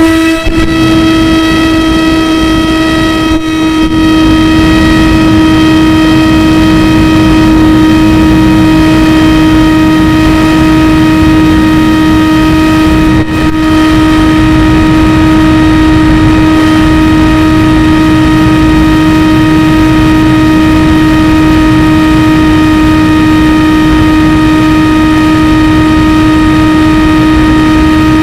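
Motor and propeller of an RC FPV aircraft running at a high, steady throttle: a loud, even whine, with a brief dip about 13 seconds in.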